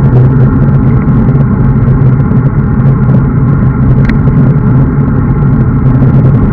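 Steady, loud wind rushing over the microphone of a bike-mounted camera at riding speed, mixed with road noise, with one short click about four seconds in.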